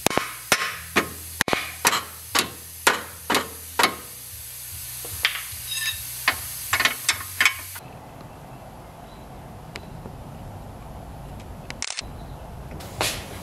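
Hammer blows on metal at the rear lower control arm of a 2016 Nissan Rogue, as the arm's bolts are knocked out. The blows come about two a second with a short pause midway, over a low steady hum. They stop about eight seconds in, leaving a faint hiss.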